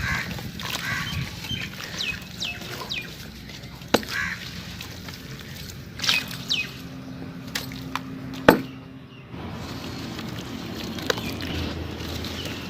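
Hard sand-cement chunks crunching and snapping, with a few sharp cracks, the loudest about eight and a half seconds in. Birds call in the background with short falling chirps.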